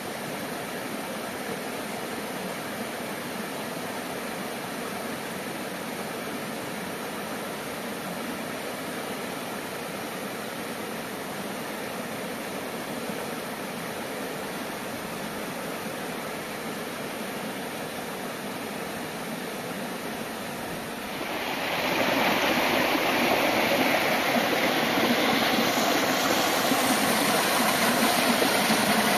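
Rocky mountain stream rushing and splashing over stones, a steady hiss of water. About 21 seconds in it turns much louder and fuller, as white water pouring over rock close by takes over.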